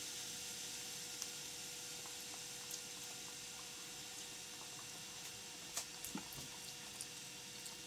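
Faint sizzling and hissing of vegetables steaming in a pan under a glass lid, with a few small pops about a second in and again near the end. A faint steady hum lies underneath.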